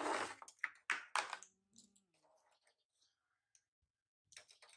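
A few sharp clicks and knocks in the first second and a half, then faint scattered ticks and a quick run of soft clicks near the end: small hard objects being handled on a hard surface.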